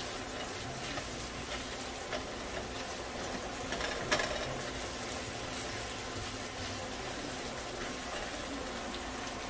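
Ground beef mince sizzling steadily in a nonstick frying pan as the water it released cooks off. A silicone spatula stirring it scrapes the pan a few times, loudest about four seconds in.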